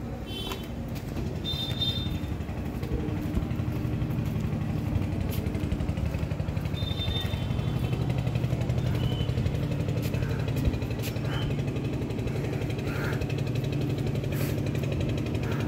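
A machine rumbling steadily with a fast pulsing beat, swelling over the first couple of seconds and then holding.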